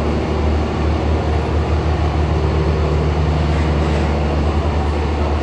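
Scania G440's inline-six diesel engine idling steadily, a low even hum with a fine rapid pulse.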